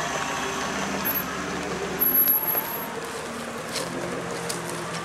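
Off-road buggy's engine running, louder for a moment about two seconds in.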